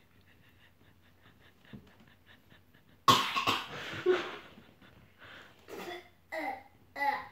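A child coughing and spluttering on sour lemon: a sudden loud fit of coughing about three seconds in, then a few shorter coughs near the end.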